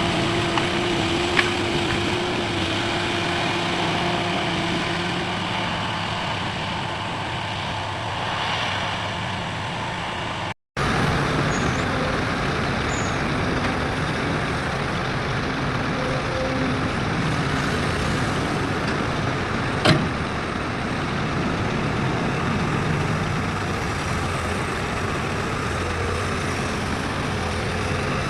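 Heavy diesel construction machinery running steadily, with two short sharp knocks, one near the start and a louder one about twenty seconds in. The sound cuts out for an instant about ten seconds in.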